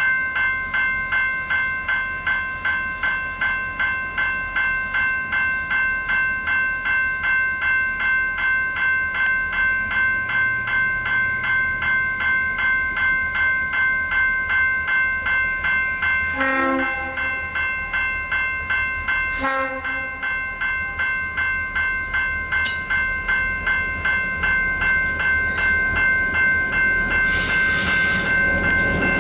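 Railway level crossing warning bell ringing steadily at about three strikes a second. Two short, lower pitched toots come about two-thirds of the way through.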